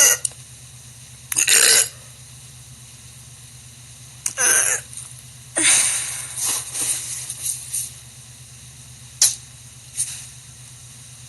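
A woman belching: a few loud, short burps a couple of seconds apart, the last ones in a run of several pulses. Two sharp clicks follow near the end.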